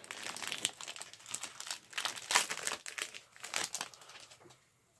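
Foil wrapper of a Pokémon trading-card booster pack crinkling and crackling in the hands as it is pulled open. The crackles are irregular and stop about four and a half seconds in.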